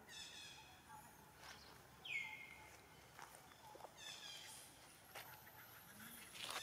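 Faint, short high-pitched calls from young long-tailed macaques, the loudest a falling squeal about two seconds in, with further calls around four seconds.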